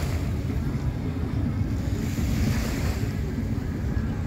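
Wind buffeting the microphone as a steady, fluttering low rumble, over the wash of the sea at the shore.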